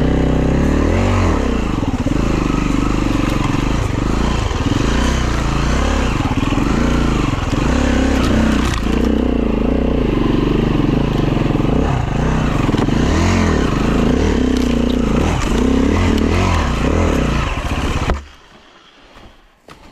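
Dirt bike engine revving up and down over and over, the pitch rising and falling every second or two. The engine sound stops abruptly near the end.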